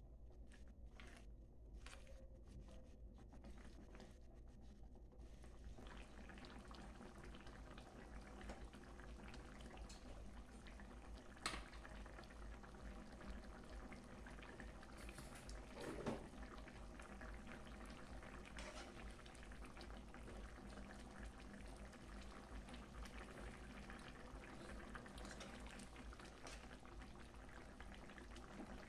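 Pot of soup simmering with faint, steady bubbling that thickens after about five seconds, with two light knocks against the pot about eleven and sixteen seconds in.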